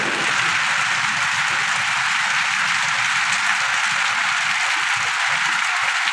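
Torrential rain pouring down steadily, a dense, even hiss of drops on wet ground, puddles and leaves.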